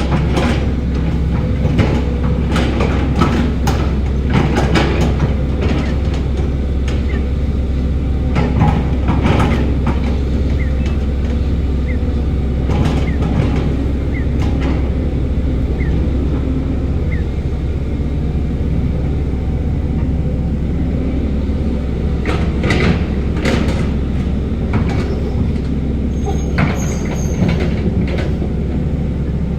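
Heavy diesel earthmoving machinery running with a steady low engine rumble, over which come frequent metallic clanks and knocks in several clusters.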